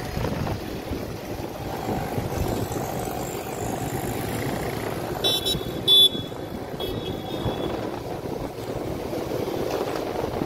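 Riding on a motorcycle in city traffic: a steady rush of wind on the microphone mixed with engine and road noise. A brief cluster of higher tones comes a little past halfway.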